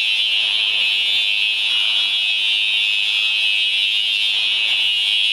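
Building fire alarm sounding continuously: a loud, steady, high-pitched tone with no breaks.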